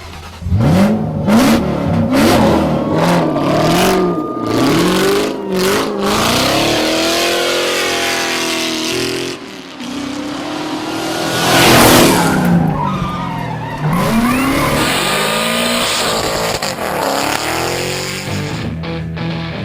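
Stunt motorcycle engines revving up and down over and over, with tyres screeching. The loudest moment is a surge of tyre noise about twelve seconds in.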